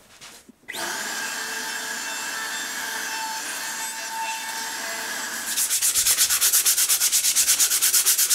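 Router table running, a 1/4-inch roundover bit rounding over the edges of a thin wooden paddle; the steady cutting noise starts suddenly about a second in. Then, from a little past halfway, hand sanding of the wood in quick, regular back-and-forth strokes.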